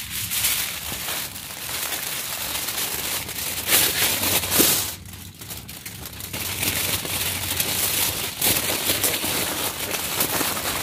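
Cooking fire crackling under leaf-wrapped meat grilling on it, the outer water lily leaves scorching. The crackling gets louder about four seconds in, then drops off briefly before picking up again.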